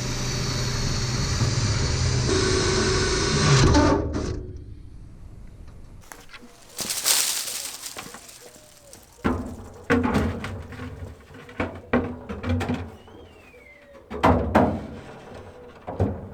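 Background music that stops about four seconds in. Then scattered knocks and clatters of parts being handled and set down while a back plate is fitted into a model railway signal box.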